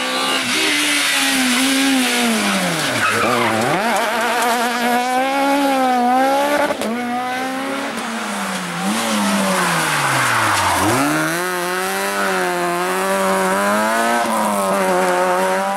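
Rally car engines at high revs on a tarmac stage. The engine note wavers through gear changes and twice drops steeply and climbs again, about three and about eleven seconds in, as a car slows for a tight corner and accelerates away. Tyres squeal underneath.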